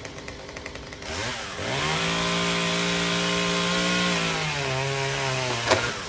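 Two-stroke chainsaw idling, revved up to full throttle about a second in and held there, then dropping to a lower pitch a little past the middle as it works into the palm trunk. A single sharp crack comes near the end as the revs fall away.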